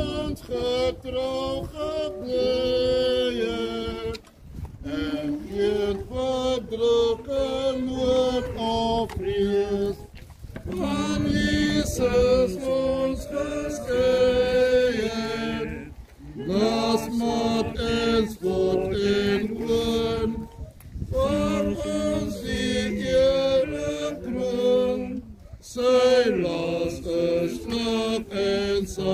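Mourners singing a hymn together, unaccompanied, in slow phrases of about five seconds with short breaks for breath between them.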